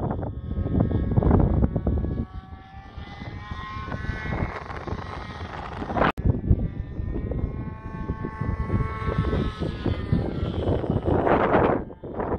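Engine of an RC model airplane running overhead in two passes, its pitch bending as it flies by. Gusts of strong wind buffet the microphone at the start and near the end.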